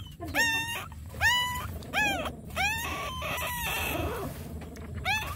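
Young puppy crying in high whines: four short rising-and-falling cries in about three seconds, then quieter.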